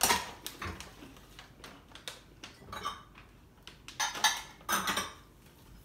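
Kitchenware clattering and clinking as someone rummages in a lower kitchen cabinet: a string of sharp knocks and clinks, some ringing briefly, busiest about four seconds in.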